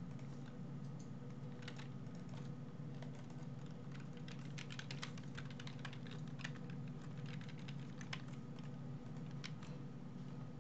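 Typing on a computer keyboard: irregular, faint key clicks, heard over a steady low hum.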